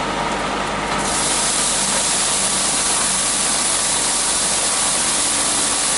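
A 1-horsepower, 24-volt DC motor running steadily at speed, spinning the impeller of an impact rice huller. About a second in, a loud steady hiss joins it as rice is fed in, flung through the huller and poured out of its chute as a stream of grain.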